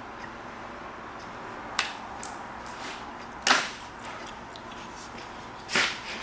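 Handling noises from hands-on work: a sharp click a little under two seconds in, then two brief scraping, rustling noises, about halfway through and near the end.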